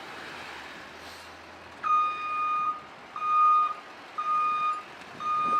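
Fire apparatus back-up alarm beeping, a high single-pitched beep about once a second, starting about two seconds in, as the rig reverses.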